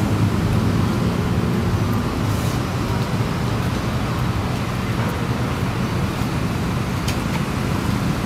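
Steady low engine rumble with an even background hiss.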